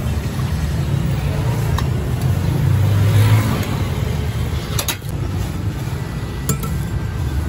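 Steady street traffic rumble, swelling as a motor vehicle passes about three seconds in, with a couple of sharp clinks of stainless steel bowls and a ladle.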